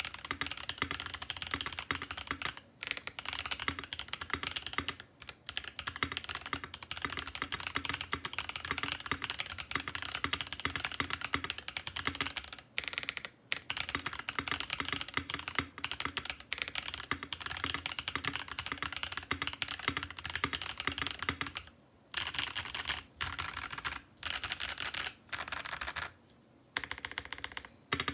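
Typing on a mechanical keyboard with lubed Boba U4T tactile switches, an FR4 plate and EPBT PBT keycaps. A fast, continuous stream of keystrokes is broken by a few brief pauses.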